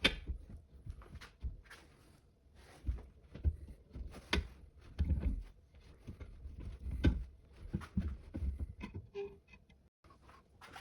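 Irregular clicks and knocks of steel parts of an impact wrench adapter being handled and worked apart by hand, with a few duller thuds among them.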